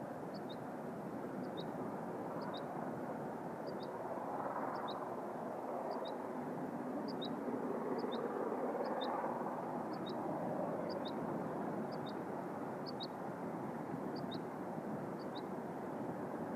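Distant LMS Princess Royal class Pacific 6201 Princess Elizabeth working its train at speed: a steady rumble that grows louder in the middle and then eases a little. A small bird repeats a pair of short high notes about once a second.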